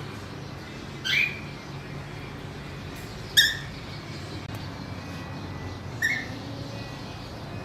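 Pet cockatiel giving three short calls a few seconds apart, the middle one the loudest, over steady low background noise.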